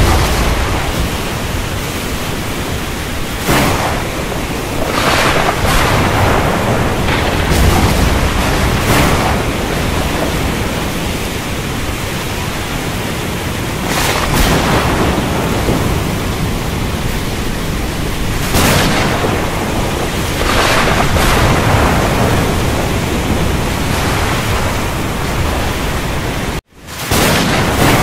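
Heavy rain with thunder: a dense, steady hiss that swells every few seconds, cutting out for an instant near the end.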